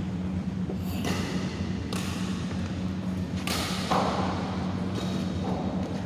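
Badminton rackets striking a shuttlecock in a rally: several sharp hits about a second apart, the loudest about three and a half seconds in, over a steady low hum.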